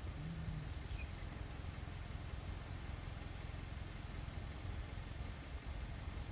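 Truck driving slowly, with a steady low engine and road rumble.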